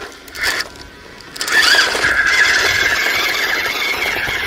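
Electric motor and gearbox of a 1/12-scale RC Unimog truck whining. After a short burst about half a second in, the whine starts about a second and a half in, bends briefly in pitch, then runs loud and steady.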